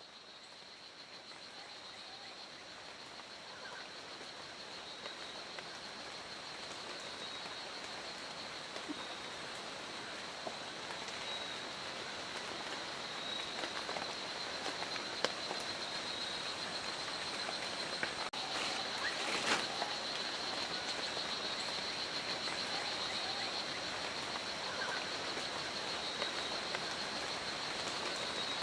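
Strawberry poison dart frog calling: a continuous high, rapid buzzing trill over a steady hiss of rainforest background noise, fading in over the first few seconds. A few brief clicks come about two-thirds of the way through.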